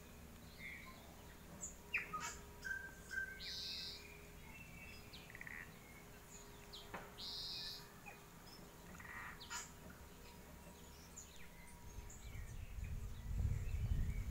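Several wild birds calling in native bush: scattered short chirps and whistled calls, including two buzzy calls. A low rumbling noise builds near the end as the camera starts moving.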